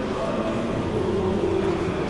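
Indistinct murmur of many people talking at once inside a church, blurred by the church's echo into a steady hum of voices.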